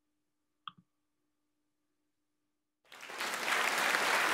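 Near silence with a faint steady hum and a brief blip under a second in, then applause starts about three seconds in, rising to full strength within half a second and carrying on.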